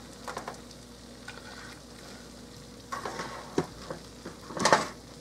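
Hot fat sizzling faintly on a sheet pan of oven-fried chicken fresh from the oven, with metal tongs clicking and scraping against the pan as pieces are lifted out; the loudest scrape comes near the end.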